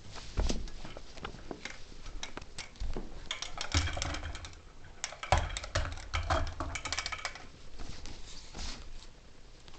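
Irregular light clicks, taps and rustling of things being handled, busiest in the middle.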